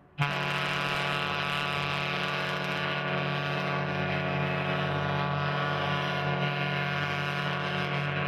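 Recreated ship's horn of the Great Lakes freighter Edmund Fitzgerald: one long, low, steady blast that starts suddenly just after the start.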